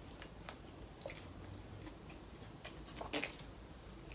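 Faint sounds of a person biting into and chewing a soft rolled wrap, with small clicks and a slightly louder moment about three seconds in.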